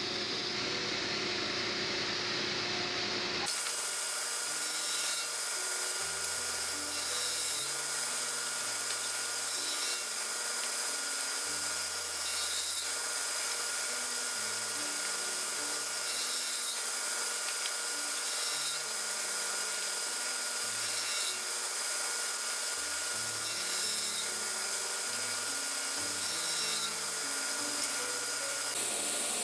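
1908 Fay & Egan table saw running, its spinning blade giving a steady whine while it cuts wooden brake blocks. The sound changes and grows fuller about three and a half seconds in.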